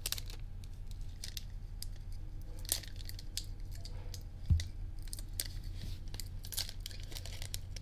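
Foil wrapper of a Japanese Pokémon booster pack crinkling and tearing in short, scattered crackles as it is worked open by hand, with a dull thump about four and a half seconds in, over a steady low hum.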